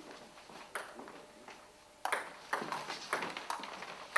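Table tennis ball being struck by bats and bouncing on the table during a rally: a few faint taps, then from about two seconds in a quick run of sharp clicks.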